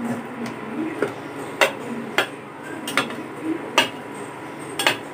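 A metal spatula clinking against an aluminium cooking pot while stirring Malabar spinach leaves. There are five or six sharp clinks at irregular intervals, about a second apart.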